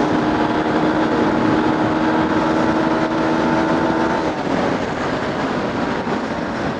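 Honda X-Blade's single-cylinder engine running at steady cruising speed, with wind rushing over the microphone; about four seconds in the engine note drops away as the throttle is eased.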